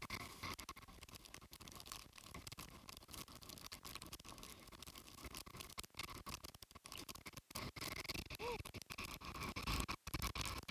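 Crackling patter of typhoon rain and wind hitting the phone's microphone, with many small irregular clicks.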